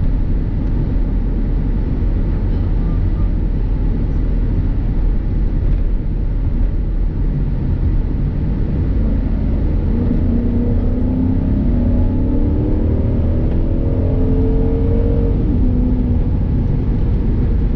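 Dodge Charger police-package car under way, heard from inside the cabin: a steady low road and engine rumble. From about halfway through, the engine note climbs steadily as the car accelerates, then falls away a couple of seconds before the end.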